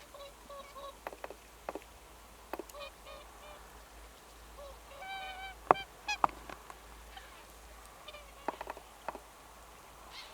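Snow geese calling: short nasal honks repeated on and off, with a quick run of calls about five seconds in. Several sharp clicks cut through, the two loudest a little past halfway.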